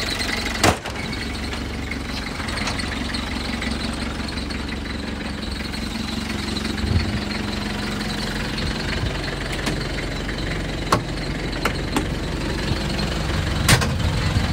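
1987 Land Rover Defender 110's engine idling steadily. A few sharp knocks and clicks sound over it, the loudest just under a second in and another near the end.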